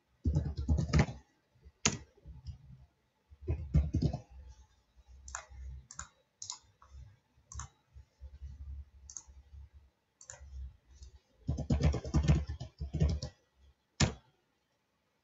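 Typing on a computer keyboard: key clicks come in three quick runs, at the start, about four seconds in, and for a couple of seconds near the end, with scattered single clicks in between.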